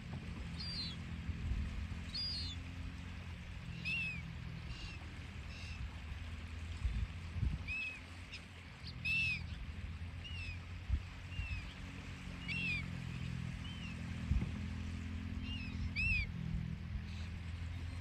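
Gulls calling, short arched cries repeated every second or so, over a low steady rumble.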